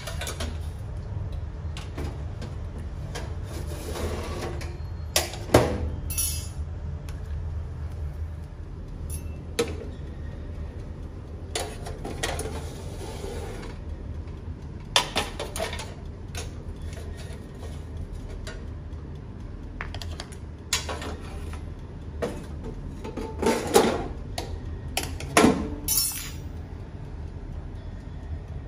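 Metal kitchen tongs and a small steel egg tin clinking and scraping against a toaster oven's tray and a wooden serving board, in scattered separate clatters, over a steady low hum.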